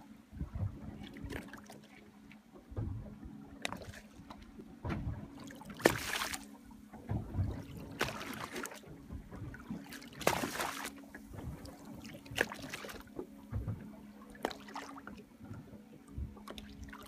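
Water lapping and slapping against a boat's hull in irregular splashes a few seconds apart, over a steady low hum.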